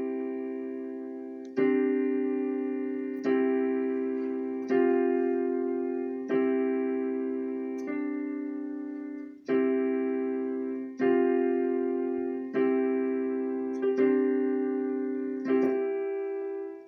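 Portable electronic keyboard with a piano sound, one hand playing three-note block chords in the middle register. A new chord comes about every second and a half, each ringing and fading until the next. It is a slow practice run through a chord progression in which two notes stay the same from chord to chord.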